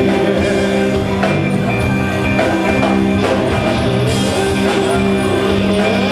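Live rock band playing at full volume: electric guitars, bass, drum kit and keyboards, with sustained held notes over the drums.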